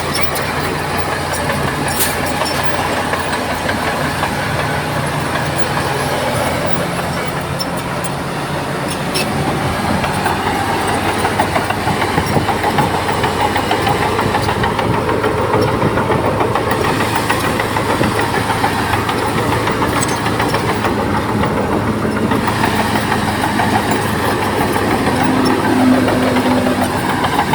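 Large diesel engine of a crawler bulldozer running steadily under load, growing somewhat louder about a third of the way through, with a few scattered clanks.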